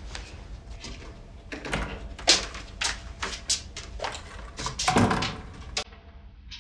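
Irregular sharp knocks and clicks of household movement, with a heavier thud about five seconds in, then quiet.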